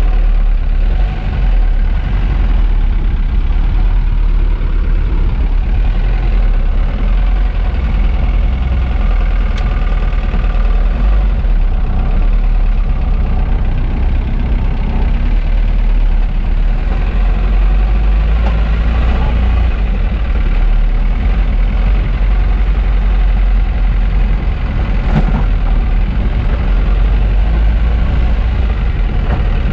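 A vintage car's engine running steadily at low revs, heard close up, with a deep continuous rumble.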